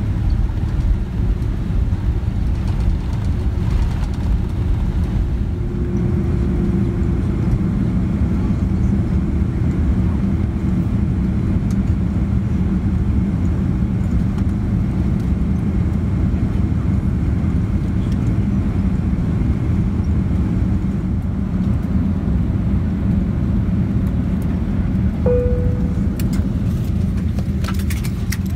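Steady low rumble of a vehicle heard from inside while it moves, with a short pitched note and a few clicks near the end.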